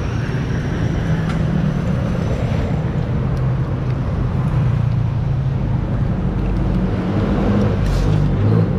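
Stock Honda XRM 125 motard's single-cylinder four-stroke engine running steadily on the road, with traffic and road noise around it.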